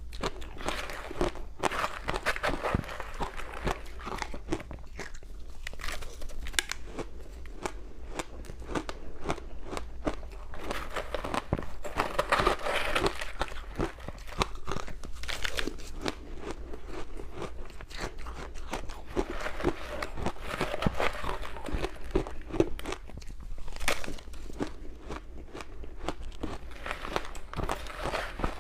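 Ice being bitten and chewed close to the microphone: dense, continuous crunching and crackling as the cubes break between the teeth.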